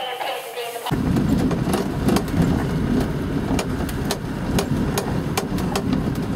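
Vehicle engine and road noise heard from inside the cabin while driving on a dirt track: a steady low rumble with frequent sharp rattles and knocks, starting abruptly about a second in.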